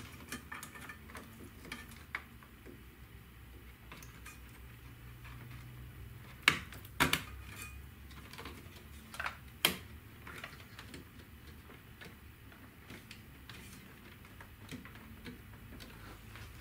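Small plastic clicks and ticks of a RAM module being handled and seated in its motherboard slot inside an open desktop PC case, with a few sharp snaps about halfway through.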